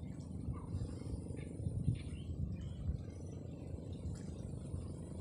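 Steady low rumble of wind on the microphone, with scattered faint bird chirps.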